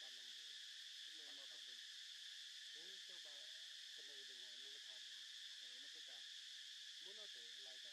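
Faint, steady high-pitched chorus of insects, unbroken throughout, with faint distant human talking underneath.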